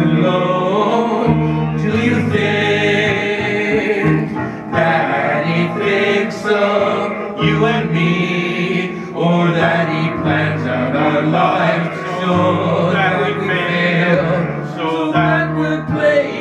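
Several voices singing a song together over electric keyboard accompaniment, with sustained bass notes under the melody.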